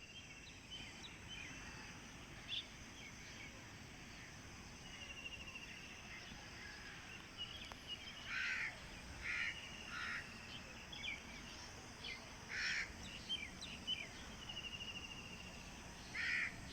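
Crows cawing several times, single harsh calls spaced a second or more apart, mostly in the second half. Between them come faint chirps of small birds and a quick high trill now and then, over a steady outdoor hiss.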